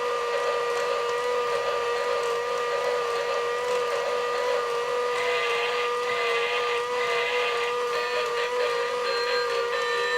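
Battery-powered toy train's small electric motor and gears running with a steady whine, joined about halfway through by a busier whirr with light clicking.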